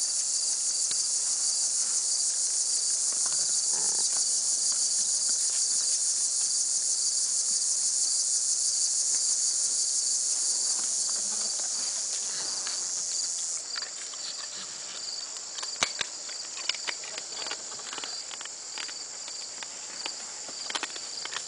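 A dense, steady, high-pitched insect chorus with a fast pulsing trill. About two-thirds of the way through it drops a little, and irregular sharp clicks and knocks from white-tailed deer stepping and feeding close by on bare ground come through over it.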